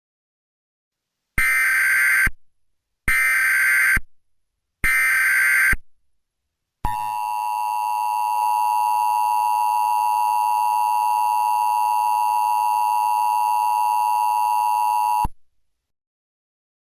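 Emergency Alert System tornado warning opening: three short bursts of SAME header data tones, each under a second and evenly spaced. Then comes the steady attention-signal tone, held for about eight seconds before it cuts off. This sequence marks the start of an emergency alert.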